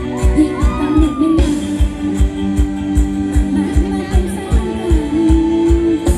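Live Thai ramwong dance band playing, with a steady drum beat of about two to three hits a second under a held, sung melody line.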